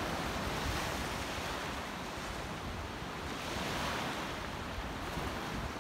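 Surf from low waves breaking and washing up a sandy beach: a steady hiss of water that swells a little about four seconds in.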